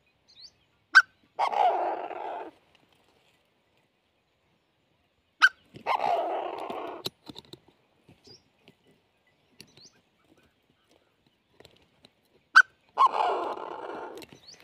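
A bird inside a cloth-covered cage giving a harsh call three times, each call about a second long and coming just after a sharp click.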